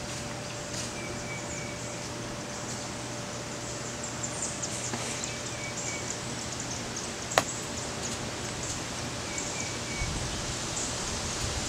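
Outdoor backyard ambience: a steady hiss with a faint steady hum, small high chirps recurring now and then, and one sharp click about seven seconds in. A low rumble comes in near the end.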